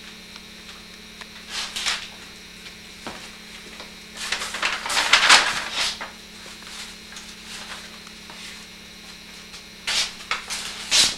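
Rustling and scraping as things on a cluttered shelf are handled, in three bursts, the longest and loudest about halfway through. A steady low hum runs underneath.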